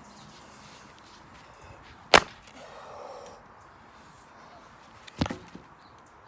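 Two sharp sledgehammer blows about three seconds apart, the first the louder, smashing a container of slime.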